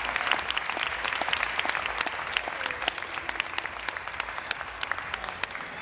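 Audience applauding, a dense patter of hand claps that gradually thins out and gets quieter.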